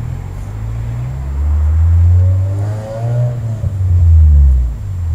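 A motor vehicle's engine running close by, its pitch rising and falling, loudest twice, about two and about four seconds in.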